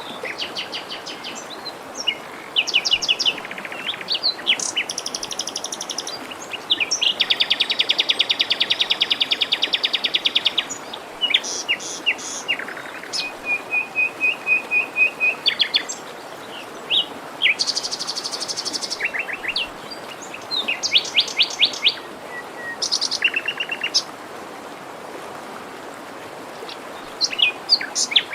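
Several songbirds singing in rapid trills and chirps, including one long trill of about four seconds, over the steady rush of a forest stream.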